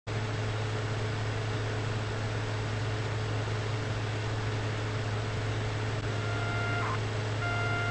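A steady low electrical hum with even hiss, starting abruptly. Near the end a faint pitched tone sounds twice briefly.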